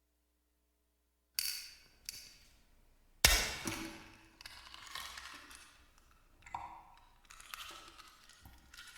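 Horror sound effect: about a second and a half of silence, then a series of sudden knocks and hits. The loudest comes about three seconds in and dies away slowly, followed by smaller scattered hits.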